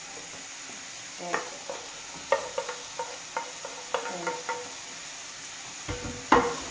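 Cooked broccoli being tipped and scraped from a frying pan into a lightly sizzling pan of baccalà, a utensil knocking against the metal pans about a dozen times with short ringing clanks. Near the end come two heavier knocks, the second the loudest sound.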